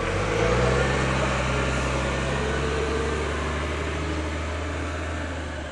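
Diesel engine of a SEPTA city transit bus pulling away from a stop: a low drone that climbs a little in pitch as it picks up speed, then runs steady and fades slowly as the bus moves off.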